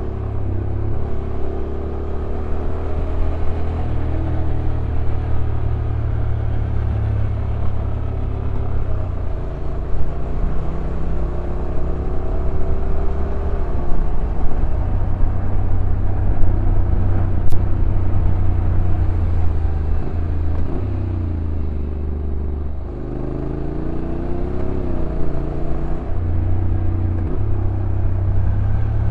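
Honda NC750X's parallel-twin engine running as the motorcycle is ridden downhill, over wind and road noise. The engine note steps up and down in pitch, dipping about two-thirds of the way through and then rising again.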